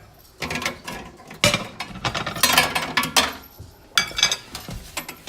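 Glass microwave turntable plate being taken out of the microwave, clinking and clattering against the turntable and oven walls in a series of sharp knocks.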